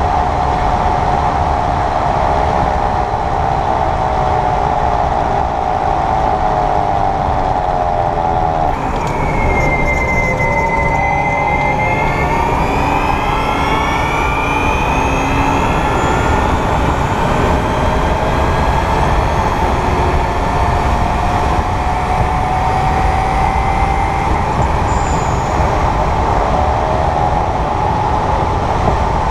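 2022 Kia EV6 front drivetrain whirring while driving in Eco mode at about 28–30 mph, over steady road noise. It is a whine whose pitch rises and falls with speed, and a higher whine joins about a third of the way in. The noise comes while the front motor is not engaged and goes away when it is.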